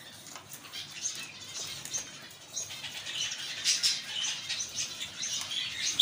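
Caged fancy pigeons as a parent feeds its squab: quick, irregular wing-fluttering and rustling, growing busier about halfway through.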